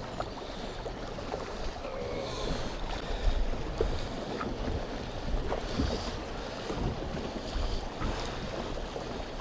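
Wind buffeting the microphone over choppy lake water slapping against a boat's side, with a few small knocks and one louder bump a little over three seconds in.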